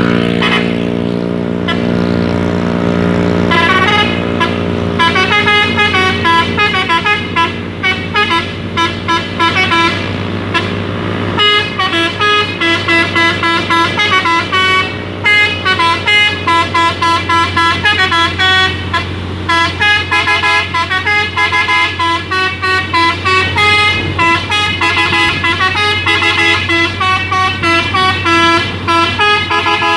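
Hino dump truck's telolet multi-tone musical horn playing quick stepping melodic phrases over and over, over a steady low hum. A low steady drone fills the first few seconds before the horn phrases begin.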